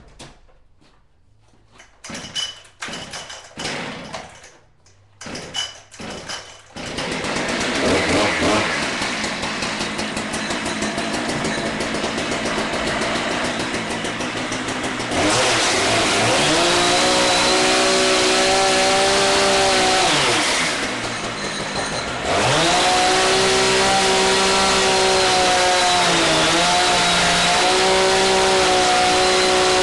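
Two-stroke chainsaw with a 30-inch bar being pull-started: a string of short sputters, then it catches about seven seconds in. It is revved up to full throttle and held there in two long stretches, easing off briefly about two-thirds through, as it cuts into a cast twig-and-resin countertop.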